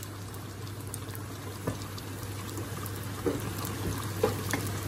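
Boiled chickpeas frying over high heat in a pan with a little oil, sizzling steadily, with a few light knocks.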